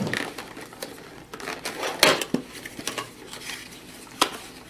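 Clicks, rattles and crackles of a boxed Intel CPU's cardboard and plastic packaging being opened. The sharpest knocks come at the start, about two seconds in and near the end.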